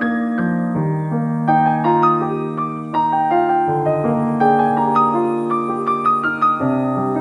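Gentle solo piano background music: a slow melody over held bass notes.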